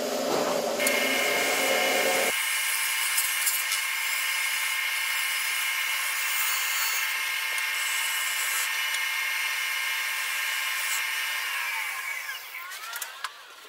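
Gouge cutting the outside of a Fijian mahogany bowl spinning on a wood lathe: a steady high whine with the hiss of wood being shaved away. Near the end the whine falls in pitch and the sound fades.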